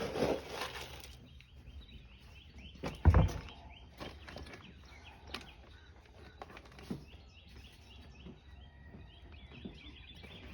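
Small birds chirping steadily in the background, with a single loud thump about three seconds in and a short rush of noise at the very start.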